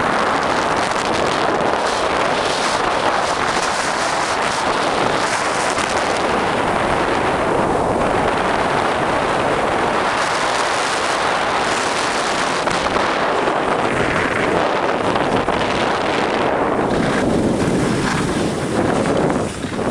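Steady rush of wind on the microphone while riding fast down a groomed ski slope, mixed with the scrape of snowboard edges over packed snow, easing off near the end.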